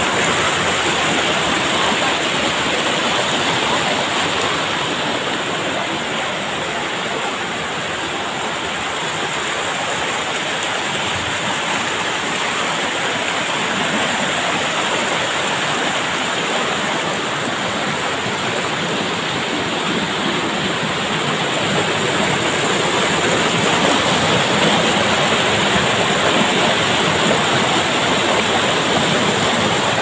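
A rocky mountain stream rushing and splashing over boulders in small cascades: a loud, steady rush of water.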